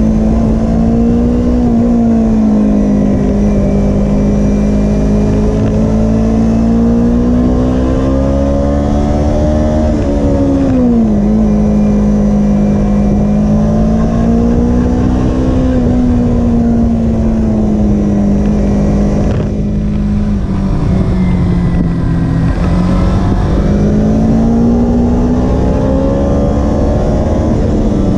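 Kawasaki Ninja 250R's parallel-twin engine under way, its note rising and falling with the throttle. About eleven seconds in the pitch drops quickly and climbs again as the bike goes from second to third gear. It sags again around twenty seconds and rises steadily near the end.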